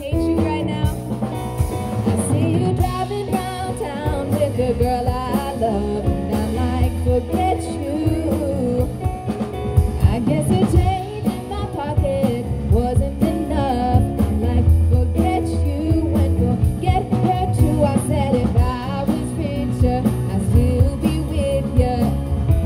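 Live band playing a song, with a woman singing over keyboard, drum kit and upright double bass.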